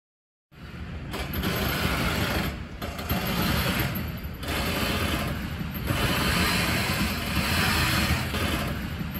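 Loud, steady rushing noise of a lock emptying through its sluices as the yacht is lowered in the chamber, starting about half a second in, with a few brief dips in level.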